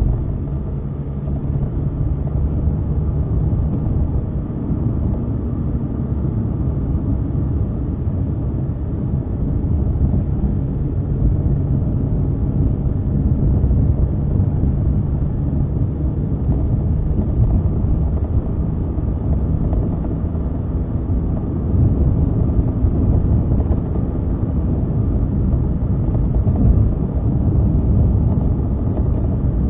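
Car engine and tyre noise heard from inside the cabin while driving, a steady low rumble with a faint engine hum.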